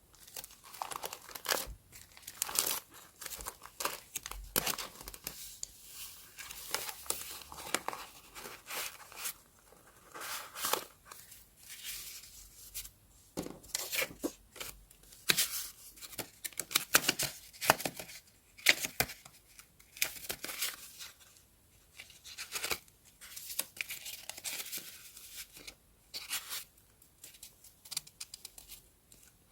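Paper being handled: repeated short tearing and crinkling sounds in irregular bursts, with brief pauses between them.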